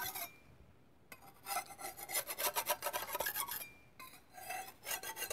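Metal putty knife scraping carbon deposits off a Honda engine's gasket deck in quick, short strokes, starting about a second in, with a brief pause partway through. This is the gentle hand cleaning of the deck surface in place of machine-shop resurfacing.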